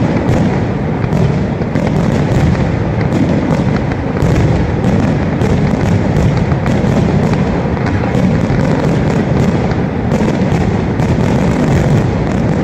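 Fireworks display in a dense barrage: aerial shells bursting one on another, so the low booms run together into a continuous loud rumble crowded with sharp cracks.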